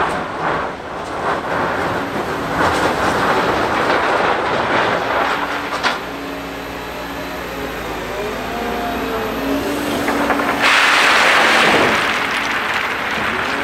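Liebherr LH60 material handler's clamshell grab working in a rail wagon full of crushed stone, the stones rattling and scraping, with a sharp knock about six seconds in. The machine's hydraulics then run with a low hum and a rising and falling whine as it swings. About eleven seconds in comes a loud rush of stone pouring from the opened grab onto the stockpile.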